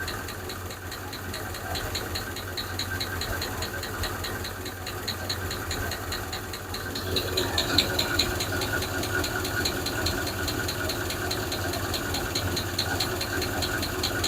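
Hemi V8 idling just after a cold start, with a rhythmic lifter tick of about four to five a second that grows a little louder about halfway through. With the VVT solenoid blocked off by an elimination plug the engine is quieter, but the owner still hears one lifter ticking.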